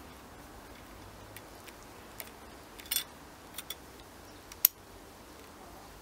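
Scattered small clicks and clacks of the Bosch PMF 190E oscillating multitool's head being handled, a few irregular ticks with a short cluster about halfway and the sharpest click near the end.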